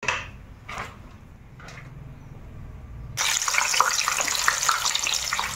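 A low hum with a few soft clicks, then, about three seconds in, a sudden loud crackling hiss of water boiling hard around spine gourds in a nonstick pan.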